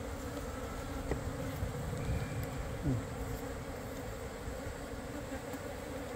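Asian honeybees (Korean native bees, Apis cerana) buzzing steadily around the hive entrance, stirred up and touchy from the hive being disturbed. About three seconds in, one buzz swells louder and drops in pitch.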